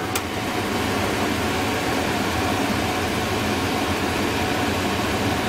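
Steady rushing of filtered air pushed out by a laminar flow hood's fan, with a low hum underneath. A single light click comes just after the start.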